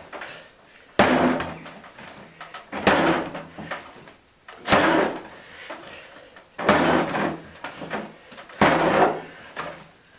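Bread dough being slapped down and folded over during hand kneading: five heavy slaps about two seconds apart, each followed by a short rustle.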